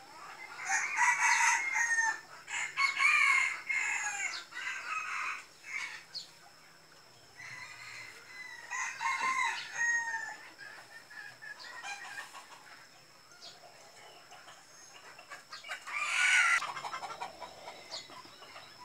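Chickens calling, with rooster crowing and clucking, in three bouts: through the first few seconds, around nine seconds in, and briefly around sixteen seconds in.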